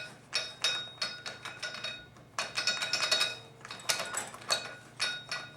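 Repeated metallic clinking and ticking from the 4L60E transmission's clutch parts as the assembly is turned back and forth to spline through the clutch frictions and work down onto the thrust bearing, not yet seated.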